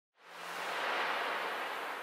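A whoosh sound effect: a smooth rush of noise that swells in over the first second, then begins to fade.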